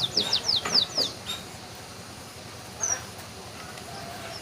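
Red avadavat (strawberry finch) singing a canary-style song: a fast trill of high, downward-sweeping notes that slows and ends about a second in, then one short high chirp near three seconds.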